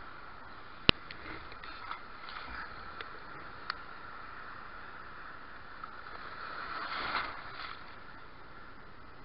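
Choppy sea water sloshing and washing around a person standing in the shallows, with a sharp knock about a second in, a few lighter clicks, and a louder rush of splashing about seven seconds in.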